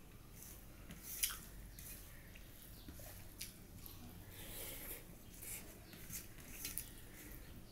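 Close-up eating sounds: fingers squishing and mixing curry-soaked rice on a steel plate, and wet chewing and lip smacks as handfuls are eaten. A scatter of faint short clicks, with one sharper click about a second in.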